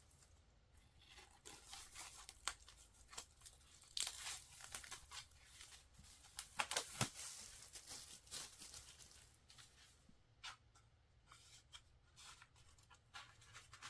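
Paper and plastic mail packaging being opened by hand: tearing, crinkling and rustling with scattered small clicks, busiest about four seconds in and again around seven seconds.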